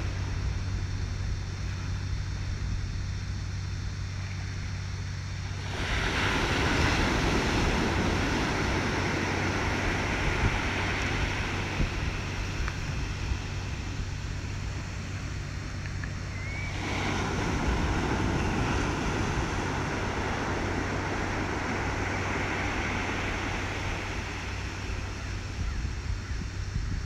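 Outdoor wind and surf noise, with wind rushing over the microphone and a steady low hum underneath. It swells louder about six seconds in and again after a brief dip around seventeen seconds.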